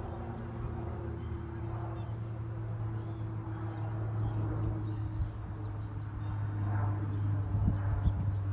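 Steady low mechanical hum that slowly grows louder.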